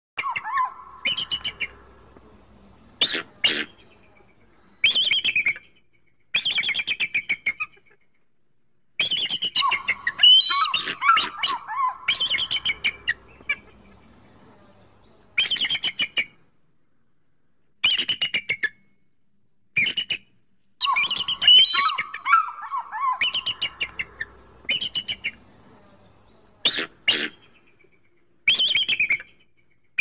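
Bald eagle calling: short runs of high, rapid chattering whistles, repeated every second or two with brief pauses between runs.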